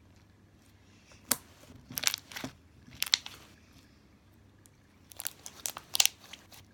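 Homemade slime being stretched, folded and squeezed by hand, giving sharp wet clicks and pops in a few short clusters with quieter pauses between.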